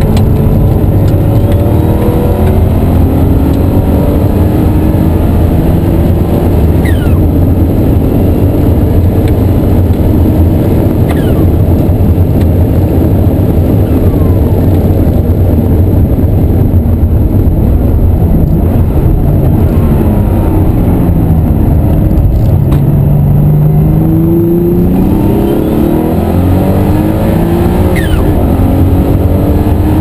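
Cabin sound of the RUF CTR 'Yellow Bird's' twin-turbo flat-six under hard racing acceleration. The engine note climbs through the revs and falls back at each gear change, over a heavy, steady drone.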